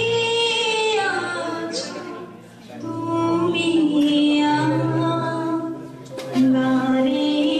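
A song with a woman singing long, held, gliding notes over a steady low drone, with short breaks between phrases about two and a half and six seconds in.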